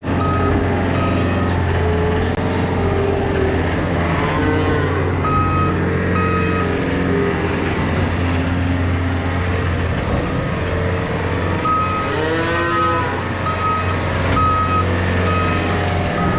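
Dairy cattle mooing, one long moo about twelve seconds in, over a steady machine hum. Short high beeps repeat through the second half, like a reversing alarm.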